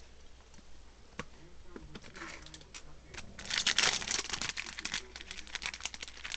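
Foil Yu-Gi-Oh! booster-pack wrapper crinkling as it is handled, in a dense crackly stretch of about two seconds midway, with scattered sharp clicks of card handling before it.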